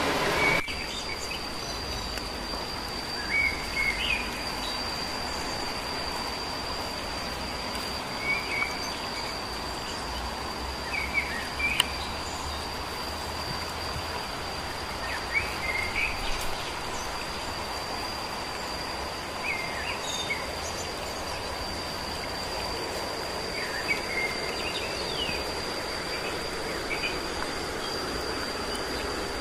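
Forest ambience: a steady, high-pitched insect drone over an even hiss, with short chirps every few seconds.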